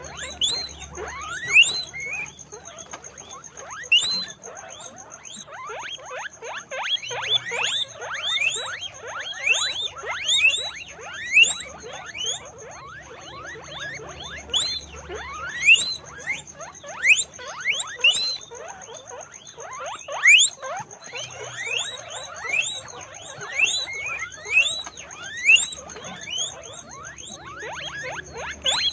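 Guinea pigs squeaking: many short, rising whistle-like squeals (wheeks), repeated over and over and often overlapping, which points to several animals calling at once.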